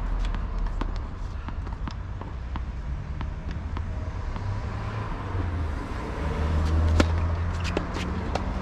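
Tennis balls struck by rackets and bouncing on hard courts: a string of short, sharp pops, the loudest about seven seconds in, over a steady low rumble.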